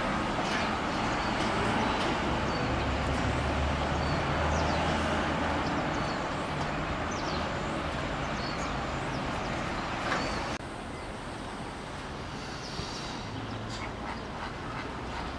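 Outdoor ambience: a steady hiss and low rumble with many short, high bird chirps scattered through it. The background drops suddenly about ten seconds in, and the chirps go on.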